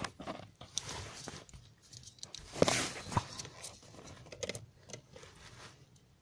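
Small handling noises: scattered light clicks and rustling, with a short scraping rustle and a sharp click about two and a half to three seconds in.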